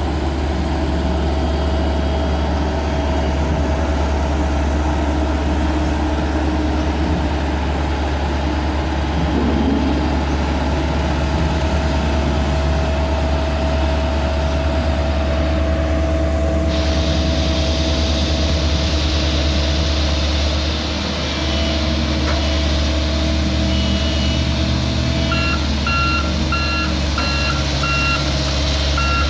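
Heavy diesel road-construction machinery running steadily with a deep, constant drone. In the last few seconds a reversing alarm starts beeping, about two beeps a second.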